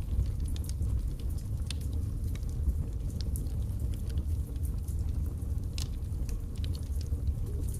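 Birchwood fire burning in a fireplace: a steady low rumble of flame with frequent, irregular sharp crackles and pops, one louder pop about six seconds in.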